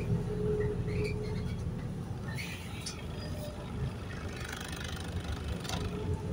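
Inside a New Routemaster hybrid double-decker bus under way: a steady low rumble of drivetrain and road, with a steady hum that fades out after about a second and a half and returns near the end. A few light rattles from the bodywork.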